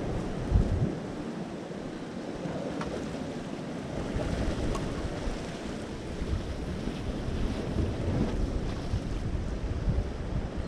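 Ocean surf surging against a rocky shore and up through a sea blowhole, with wind rumbling on the microphone.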